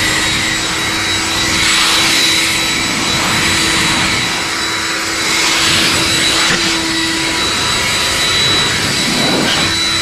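Leaf blower running at full speed, blowing sawdust off a freshly sawn black cherry slab and the sawmill bed: a steady rush of air with a high whine.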